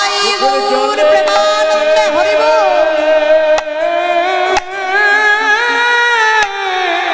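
Bengali kirtan singing: a female voice bends through a melodic phrase, then holds long notes over sustained instrumental accompaniment, and the phrase falls away near the end. Sharp percussion strikes come every second or two.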